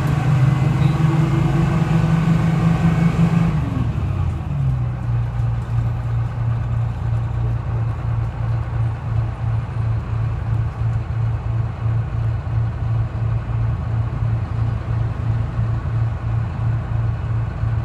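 Two-stroke Detroit Diesel 6V71 engine of a 1970-71 GMC New Look bus, running at higher speed for the first few seconds, then dropping back about four seconds in to a steady, evenly pulsing idle.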